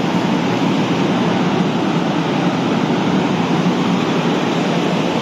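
CSR Zhuzhou electric multiple unit standing at the platform with its doors open, its on-board air-conditioning and auxiliary equipment giving a loud, steady rushing noise.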